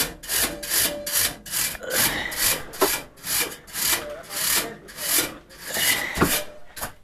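A stiff brush scrubbing back and forth across the fins of a walk-in cooler's evaporator coil, in quick even strokes of about two to three a second, stopping abruptly at the end.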